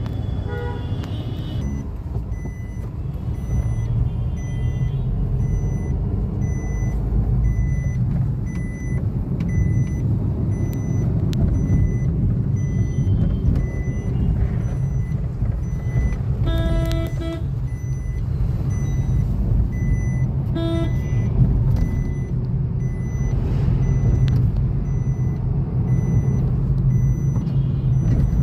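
Steady low rumble of a vehicle moving through city traffic, heard from on board. Vehicle horns honk briefly near the start, for about a second around seventeen seconds in, and once more shortly after.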